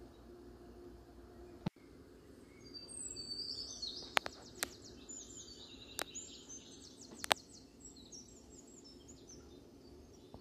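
Small birds chirping in quick high twitters, over a faint steady hum, with a few sharp clicks.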